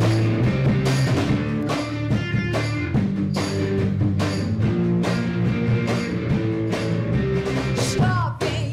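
Live rock band playing the instrumental intro of a song: electric guitar, bass and drum kit with a steady beat. The singer comes in near the end.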